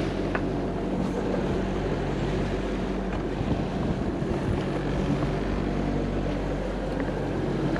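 A Gulfstar 40 sailboat's inboard engine running steadily while motoring under way, an even low hum, with wind and water noise over it.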